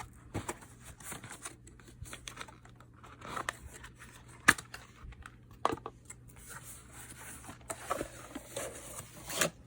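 Packaging being handled and unwrapped: crinkling and rustling with scattered sharp clicks and taps. The sharpest click comes about four and a half seconds in, and another just before the end.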